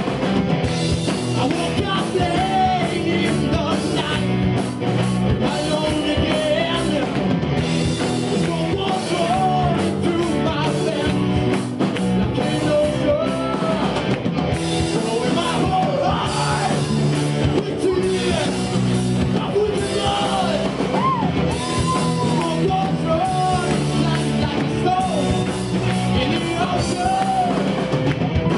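Live rock band playing: electric guitar, bass guitar, drum kit and keyboard, with a male voice singing over the band.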